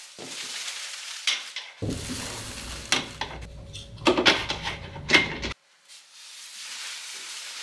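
Plastic wrap and cardboard packaging rustling and crinkling, with scattered knocks and clatters, as a large display screen is unpacked from its box. The sound breaks off for a moment about five and a half seconds in.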